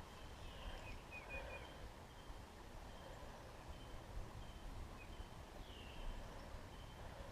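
Birds calling in the woods: a short high note repeated roughly every three-quarters of a second, with a few chirps and down-slurred calls, over a faint low rumble.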